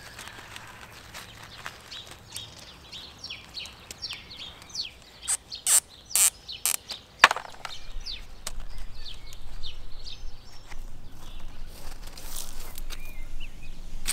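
Gravel ballast crunching and rattling as gloved hands scrape and press it over cables, with a run of sharp stone clicks in the middle, then steadier rustling.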